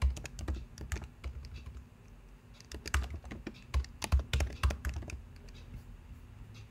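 Typing on a computer keyboard: a run of quick keystrokes that slows about two seconds in, picks up again in a fast burst, then stops about five seconds in.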